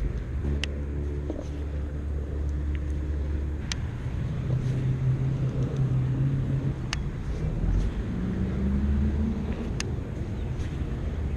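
A motor vehicle engine running nearby, a low hum whose pitch shifts and rises a little near the end, with a few sharp clicks in between.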